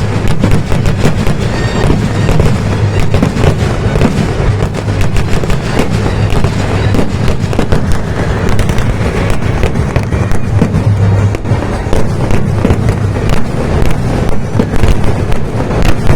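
Kerala temple-festival fireworks (vedikkettu): a dense, unbroken barrage of firecracker bangs and crackles, loud throughout.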